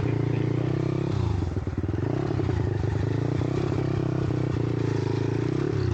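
Monkey bike engine running steadily on the move. The revs drop about a second in and pick back up, then ease off briefly again near the end.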